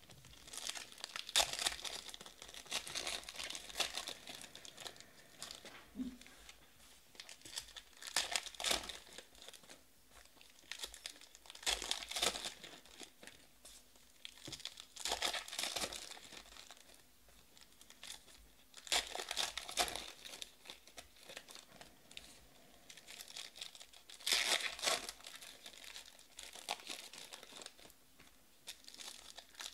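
Trading-card pack wrappers being torn open and crinkled, one pack after another, in loud rustling bursts every few seconds.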